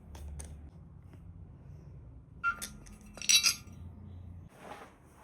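A few light clinks and knocks of hard objects being handled, with a short ringing clink about two and a half seconds in and the loudest cluster of clinks around three and a half seconds; a low hum underneath stops near the end.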